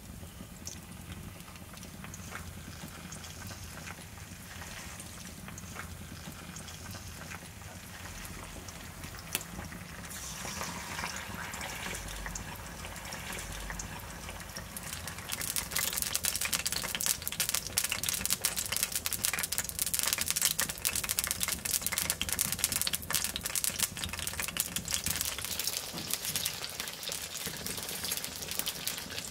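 Chicken legs cooking in melted lard in a cast-iron pan over a wood fire: the fat sizzles and bubbles, becoming a much louder, dense crackle about halfway through.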